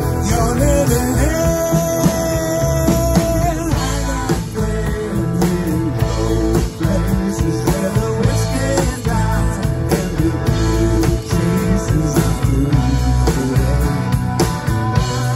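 Live rock band playing: electric guitars over a drum kit and keyboard, with a long held lead note about a second in.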